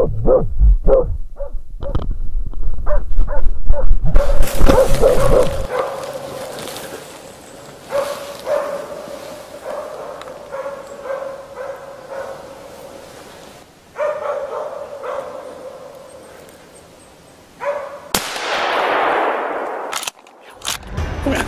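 Plott hounds barking at bay at a bear: rapid repeated barks, about two a second at first, loud, then fainter in later stretches. A burst of rushing noise comes near the end.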